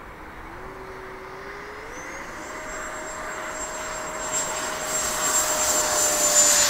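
Electric ducted fan of a 90 mm Freewing F-22 Raptor model jet on 8S power spooling up for takeoff: a whine that steps up in pitch twice in the first couple of seconds, then holds steady at takeoff power. It grows steadily louder as the jet rolls across the grass toward the microphone.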